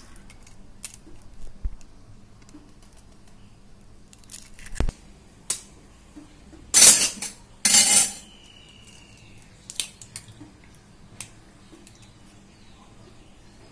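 Eggshells being tapped and broken open by hand: scattered sharp clicks, with two louder, longer cracking noises about seven and eight seconds in.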